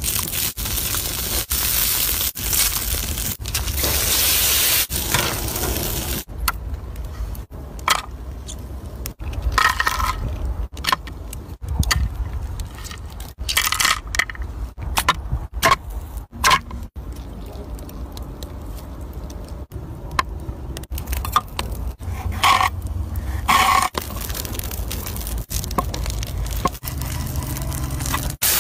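Food-preparation sounds in quick cuts. For about the first six seconds water rushes and splashes in a foil tray. Then come scattered clicks, light clinks and scrapes as snail shells and mantis shrimp are handled, and a knife scores a fish on a wooden board.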